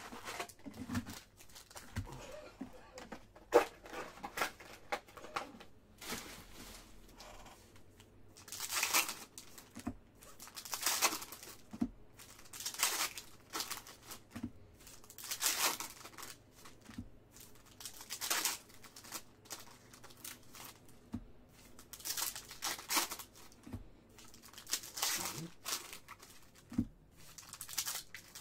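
Panini Contenders football card packs being torn open by hand: a run of short wrapper rips and crinkling about every one to two seconds, with scattered clicks and taps from handling packs and cards, one louder tap early.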